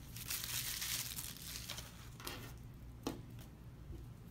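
Plastic bubble wrap crinkling and rustling as it is pulled off a resin statue, fading after about a second and a half, followed by two light clicks.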